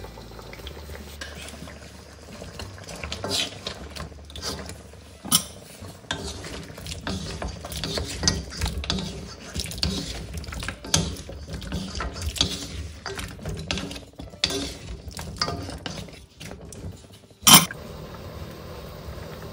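Wooden spatulas stirring a simmering stew in a carbon-steel wok, with repeated scrapes and knocks against the pan. A single sharp, loud knock comes near the end.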